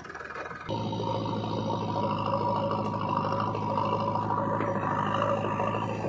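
Diesel engine of a JCB 3DX backhoe loader running steadily at working revs while the backhoe arm is worked, with a steady whine over the engine drone. The engine sound sets in sharply just under a second in, after a quieter start.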